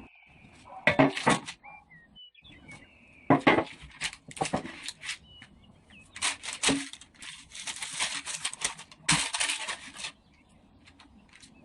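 Bouts of sharp rustling and clattering, like things being handled and moved about, coming in four or five bursts a second or two apart.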